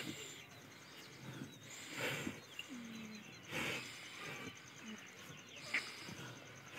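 Water buffalo munching chopped green fodder, with a few soft rustling bursts from the feed. Small birds chirp faintly in the background.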